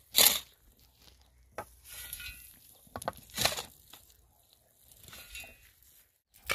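Hands working in loose, gravelly soil on a plastic sheet: a few short scrapes and rustles with small clicks of grit or stones, the loudest at the very start.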